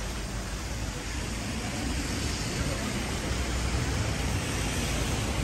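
City street traffic on wet roads: a steady hiss and low rumble of passing cars, slowly growing louder toward the end.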